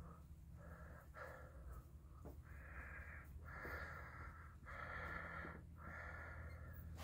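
A person's slow, steady breathing close to the microphone: soft in-and-out breaths just under a second each, getting louder about halfway through.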